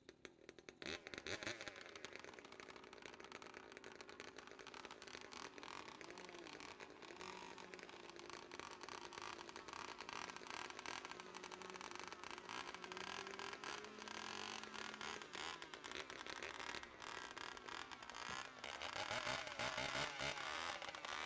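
Competition chainsaws running at full revs, cutting through logs. The sound comes in sharply about a second in and gets louder near the end.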